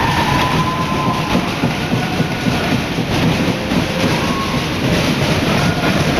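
Loud, continuous crowd noise in a hockey arena: spectators cheering and shouting, with one held shout fading out about a second in.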